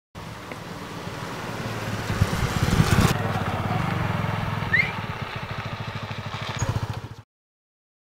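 Honda sport motorcycle engine running as the bike rides up, loudest about two to three seconds in, then an even pulsing idle that stops abruptly near the end.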